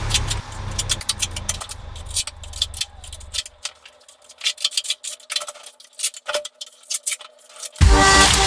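Irregular sharp clicks, taps and light knocks, like hand tools or small objects being handled, over a faint steady hum. Electronic background music plays under them for the first three and a half seconds, cuts out, and starts again near the end.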